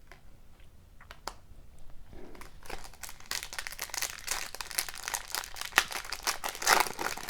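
Wrapper of a hockey card pack crinkling and tearing as it is opened. A few light clicks come first, then dense crinkling from about two and a half seconds in.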